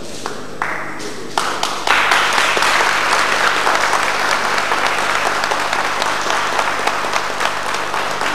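Audience applauding: a few scattered claps that build within about two seconds into full applause, which slowly thins toward the end.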